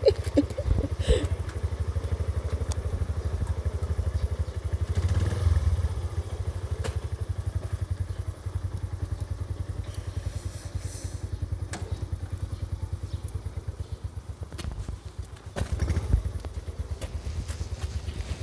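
Honda Magna 50's small single-cylinder four-stroke engine running with a steady, fast pulsing beat, picked up by a camera mounted on the bike. A few clicks and knocks come through, the loudest about five seconds in and again near the end.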